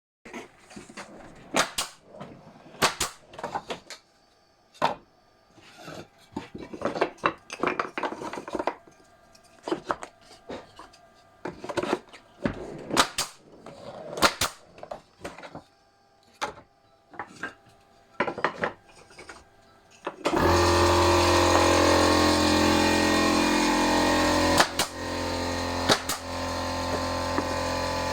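Wooden beehive frame parts being set into an assembly jig and knocked together, irregular sharp wooden knocks and clicks. About twenty seconds in, a steady machine hum starts abruptly and runs on, with a couple of clicks over it.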